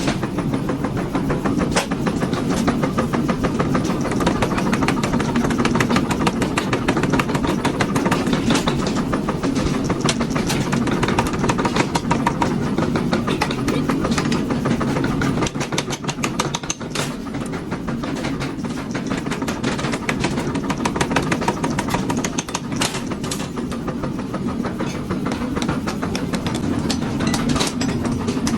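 Workshop machinery running, a continuous mechanical clatter with many rapid knocks.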